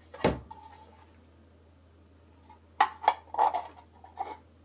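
Hard plastic knocks and clacks as a hobby servo with a 3D-printed bevel gear is handled against a 3D-printed turntable: one sharp knock about a quarter second in, then a quick irregular run of four or five clacks in the second half.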